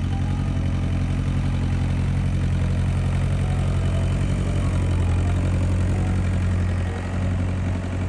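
Massey Ferguson 165 tractor engine running steadily at low revs as the tractor drives slowly up close, moving a loaded log wagon.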